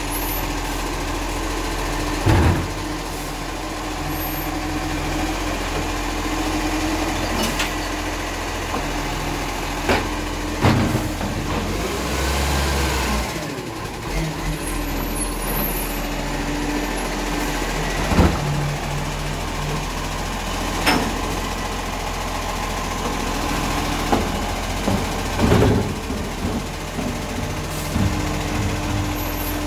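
Side-loading recycling truck running with its hydraulic bin-lifting arm at work: a steady engine and pump hum, broken by about five sharp clunks as wheelie bins are lifted, tipped into the hopper and set back down.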